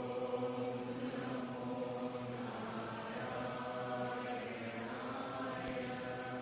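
Faint, steady devotional chanting in Sanskrit, held low.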